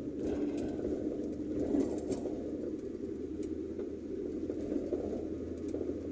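Steady engine and tyre rumble heard from inside a car's cabin while driving on a paved road, with a few faint ticks.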